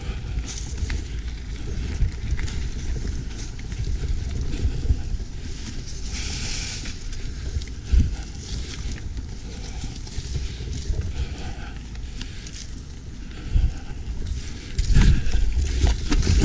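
Mountain bike rolling along a leaf-covered dirt trail: a steady rumble of tyres over leaves and dirt, with wind on the bike-mounted camera's microphone. Sharp knocks and rattles from bumps in the trail, the strongest about eight seconds in, with louder jolting near the end.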